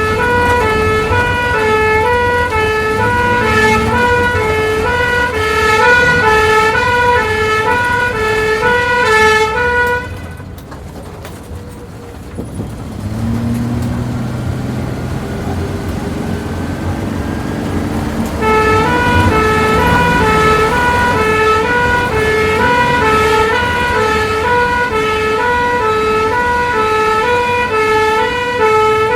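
Two-tone ambulance siren heard from inside the ambulance, switching between a high and a low pitch about every half second. It cuts off about ten seconds in, leaving only a quieter low rumble of the vehicle for some eight seconds, then starts again.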